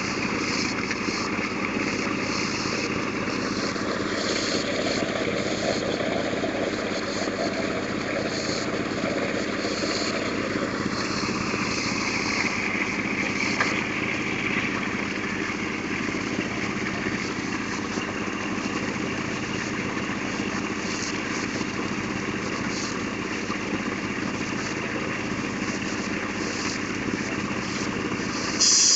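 Water-well drilling rig running steadily, its drive motor and pump machinery making a constant mechanical drone with splashing and rattle from the drilling. Near the end a loud steady hiss starts.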